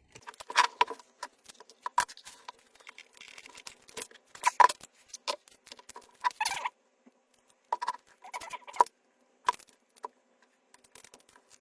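Irregular light clicks, taps and scraping as a stack of cylindrical lithium-ion cells in their plastic holder is worked loose from an opened e-scooter battery pack.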